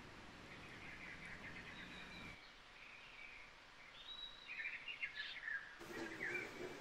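Faint birdsong from a nature-sounds backing track: scattered chirps and short calls over a low outdoor ambience. The background changes abruptly twice, dropping about two and a half seconds in and shifting again near the end.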